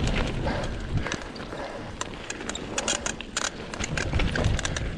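Cannondale Scalpel mountain bike rattling over rough trail, giving many short irregular clicks and squeaks over tyre and wind rumble. The squeaks come from the bike itself and are a fault the rider has yet to fix.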